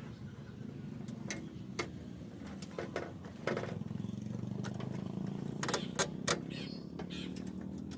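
A steady low engine-like hum with scattered sharp clicks and taps, the loudest a quick pair about six seconds in.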